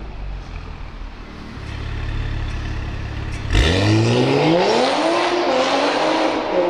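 Manhart-tuned Toyota GR Supra's turbocharged 3.0-litre straight-six idling steadily, then launching hard about three and a half seconds in. The engine note climbs quickly in pitch and holds high as the car accelerates away.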